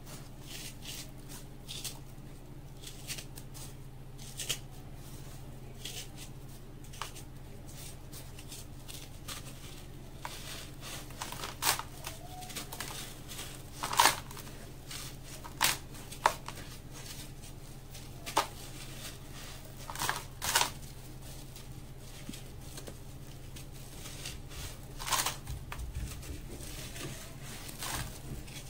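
Hands crumbling lumps of set sand-cement into dry cement powder in a plastic bucket: gritty, crunchy crackling, with a number of sharper single crunches through the middle part.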